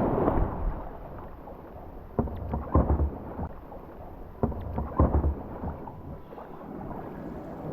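Sea kayak on the water: water sloshing against the hull under a low rumble of wind on the microphone, with two pairs of sharp low thumps, the first about two seconds in and the second about four and a half seconds in.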